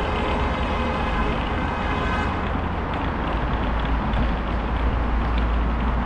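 Steady city road traffic noise with a deep rumble. A faint high whine sits over it for the first two seconds or so.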